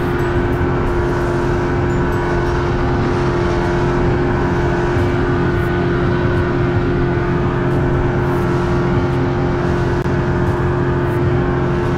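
Outboard motor on a small fishing boat running steadily at constant speed, a loud even drone.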